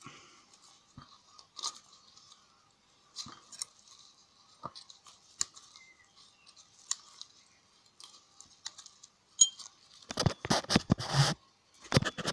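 Handling noise: scattered small clicks and scrapes of gloved hands and tools, then two loud bursts of crunching, rustling noise near the end as the camera is moved.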